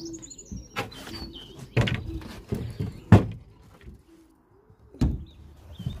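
Knocks and scrapes of a wooden OSB landing board being worked onto a pigeon loft's slot, four sharp knocks with the loudest about three seconds in. Young pigeons coo and peep in the background.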